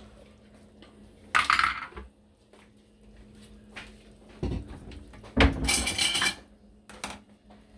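Kitchen clatter of cookware and utensils being handled: a few short knocks and clinks, the loudest run about five and a half seconds in.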